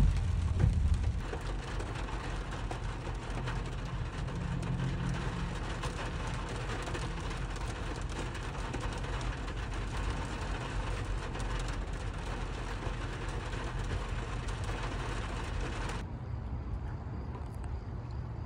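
Rain falling on a car's roof and windshield, heard from inside the cabin as a steady hiss full of small drop ticks over the car's low rumble. Near the end it cuts abruptly to a duller, quieter low rumble.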